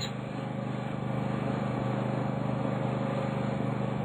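High-pressure firefighting pump unit running with a steady engine-like drone, under an even hiss of water fog spraying; it grows slightly louder about a second in.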